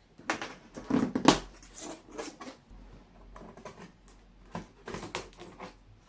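Handling noises: irregular knocks and short rustles, a cluster of them about a second in, the loudest, and another near the end.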